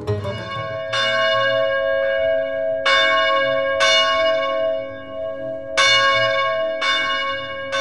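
Church tower bell rung from a rope ringing chamber, struck in pairs about a second apart with a longer gap between pairs. Each strike rings on and slowly fades under the next.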